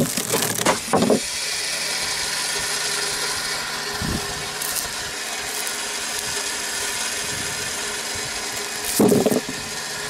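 Pressure-washer-powered water-hydraulic log splitter (two-cylinder tandem) splitting a log: loud cracking of the wood in the first second, then the pressure washer running steadily. A short knock about four seconds in and a louder thud of wood about nine seconds in.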